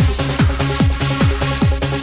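Electronic dance music, trance-style: a steady kick drum on every beat, about two and a half beats a second, under sustained synth chords.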